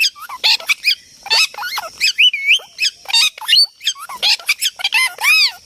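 Parrots squawking and chattering: a rapid, overlapping run of short, shrill calls that rise and fall in pitch, several a second.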